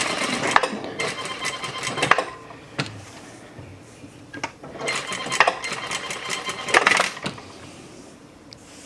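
Home sewing machine stitching in two short runs: the first carries on until about two seconds in, and the second runs from about five to seven seconds in. A few clicks fall in the pause between them.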